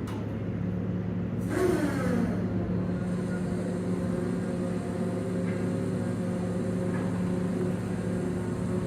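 Steady low mechanical drone of engines or ship machinery, with a brief hiss and a falling tone about a second and a half in.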